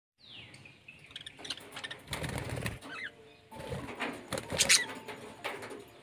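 Caged budgerigars fluttering their wings in two short flurries, about two seconds in and again from about three and a half seconds, with brief chirps and a falling whistle at the start.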